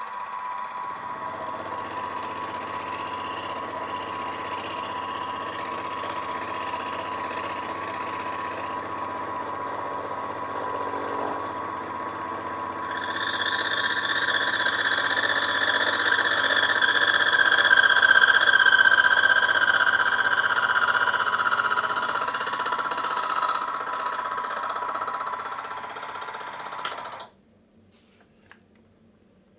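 Sieg SX2P mini mill running with a spiral end mill cutting the corners off a small metal crosshead: a steady motor whine with higher squealing cutting tones. The sound grows louder about halfway through, and the higher tones sag slightly in pitch. Near the end the mill stops abruptly.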